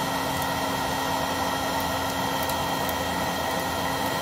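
Homeright Electro Torch electric fire starter running steadily, its fan blowing hot air into lump charcoal to get the coals glowing. It makes an even rushing hum with a steady high whine, much like a hair dryer.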